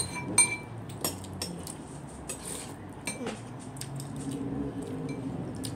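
Scattered light clinks and taps of cutlery and dishes at a meal, the loudest about half a second in with a short ringing after it.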